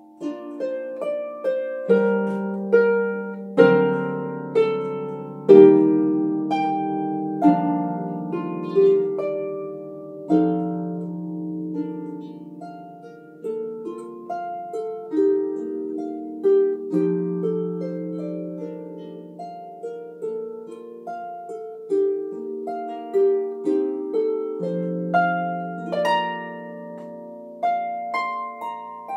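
Solo harp played by hand: a slow melody of plucked notes, each ringing and fading away, over lower bass notes plucked every second or two.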